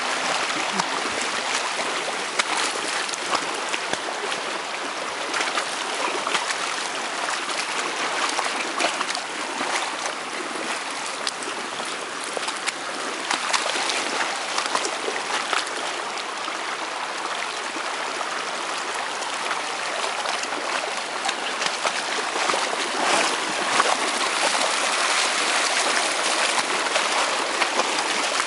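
Flash-flood runoff rushing in a shallow, churning sheet over forest ground and down a dirt driveway, a steady rushing-water noise from heavy overflow. Small sharp ticks and splashes are scattered through it.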